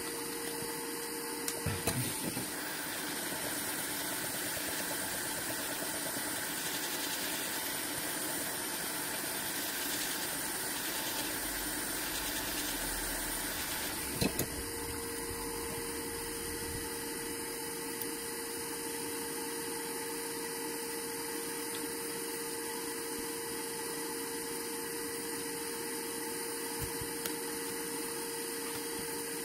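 Steady whir of a small motor with a faint hum. Its tone changes after a click about two seconds in, and changes back after a second click about halfway through.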